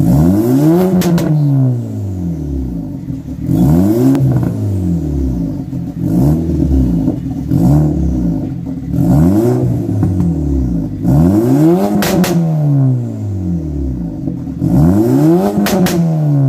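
Volkswagen Golf Mk6 with a straight-piped exhaust (upgraded downpipe, Y-pipe, Golf R-style twin exits) being revved while standing still: about seven quick revs that climb and fall back to idle. Sharp pops and crackles come from the exhaust near the top of each rev.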